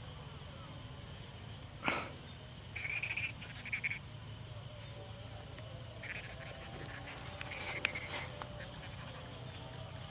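Night-time chorus of insects, with a steady high trill and short buzzy calls from frogs or crickets coming in a few bursts. A single sharp click sounds about two seconds in.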